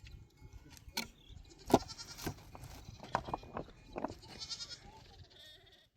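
A flock of sheep bleating, several short calls one after another. The sound cuts off suddenly near the end.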